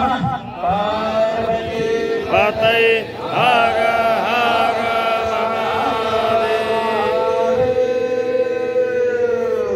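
A man chanting into a handheld microphone, a devotional call: a few quick rising and falling phrases, then a long drawn-out held note through the second half.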